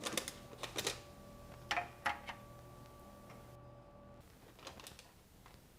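Light clicks and clatters of kitchen utensils handling the baked chicken wings, in a quick cluster early on and a few fainter taps near the end. Under them is a faint steady electric hum that stops about four seconds in.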